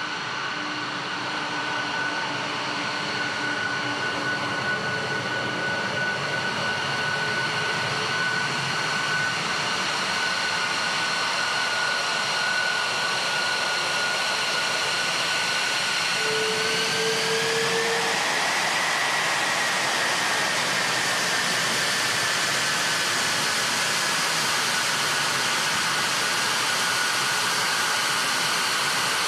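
An F-22 Raptor's twin Pratt & Whitney F119 turbofan engines running at taxi power, a steady high whine over a rushing hiss. A little past halfway the whine rises in pitch, then slowly settles back down.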